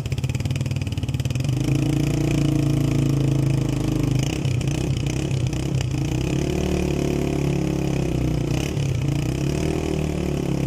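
Honda CB125 motorcycle's single-cylinder four-stroke engine running and being revved several times, its pitch rising, holding and dropping back between blips.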